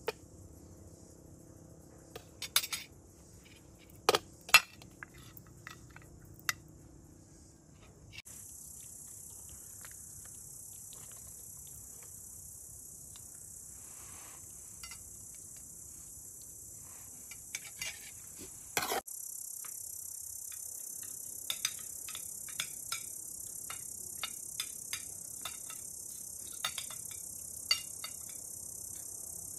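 A steady, high-pitched insect chorus, jumping louder twice, with scattered sharp clinks and knocks of cutlery and dishes.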